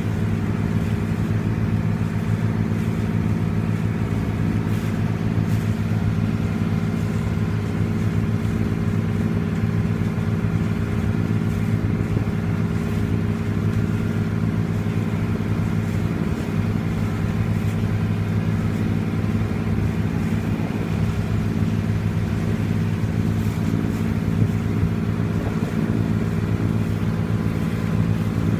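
Passenger ferry's engines running at a steady cruising drone, heard on board: an even low hum that does not change.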